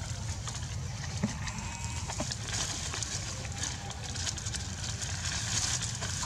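Young long-tailed macaque giving faint, bleat-like cries while an adult monkey grabs and tussles with it, over the rustle and crackle of dry leaves.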